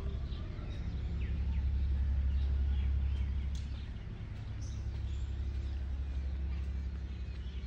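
Birds chirping with many short, high calls scattered throughout, over a steady low rumble that is loudest in the first four seconds and then eases.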